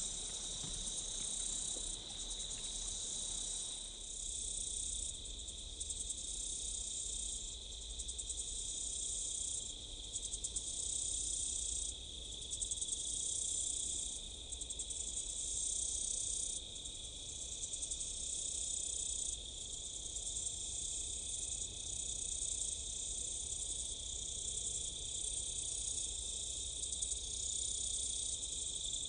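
A chorus of insects, crickets or similar, chirring without pause: a steady high tone with a still higher shrill layer that swells and drops every second or two.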